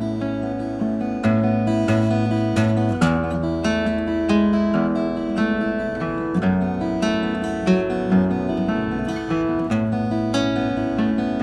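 Acoustic guitar fingerpicked in a steady three-finger pattern, the thumb carrying the rhythm on the bass strings while the index and middle fingers keep up a repeating filler. The guitar is in drop D tuning with a partial capo on the second fret that leaves the top two strings open.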